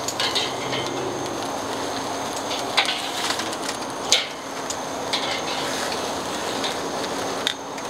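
Ribeye steaks sizzling and crackling on the hot grate over charcoal as they are turned with metal tongs, with a handful of sharp clicks of the tongs against the grate.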